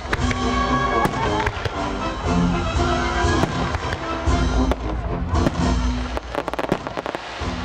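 Aerial fireworks shells bursting and crackling overhead, with a quick cluster of sharp cracks near the end, over music with sustained notes.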